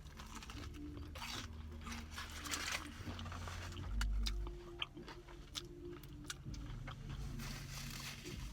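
Close-up eating sounds: crunchy bites into and chewing of a fried chicken sandwich, with scattered crackles and small mouth clicks.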